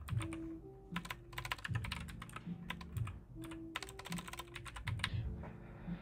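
Rapid typing on a computer keyboard in several quick runs of clicks, over soft background music with a low, regular beat.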